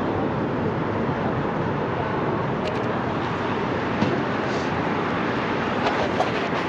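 Steady city street ambience of traffic around a tram stop, with a few faint, sharp clicks.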